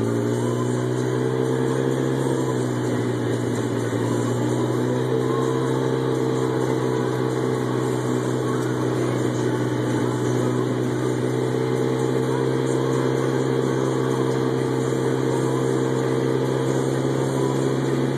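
Polaris RZR side-by-side's engine running steadily while driving, its pitch rising and easing off a few times as the throttle changes.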